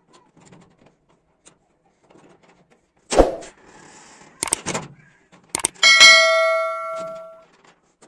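Metal clanks and sharp clicks of a homemade steel door latch being worked. They are followed about six seconds in by a bright bell-like ding that rings for about a second and a half and dies away.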